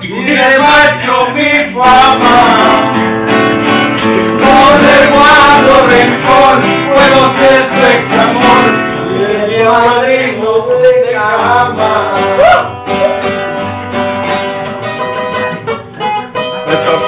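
Acoustic guitar played live with male voices singing along loudly.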